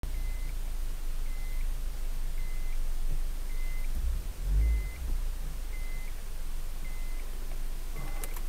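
Car's turn-signal indicator beeping about once a second over a steady low engine idle, with a brief louder low rumble around the middle and a sharp click near the end.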